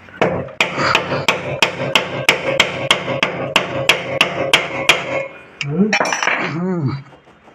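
Steady hammer taps on metal, about three a second, driving a stuck gear selector shaft out of a Hero Splendor Plus motorcycle engine's crankcase, where packed dust is holding it. Near the end the tapping stops and a brief wavering pitched sound follows.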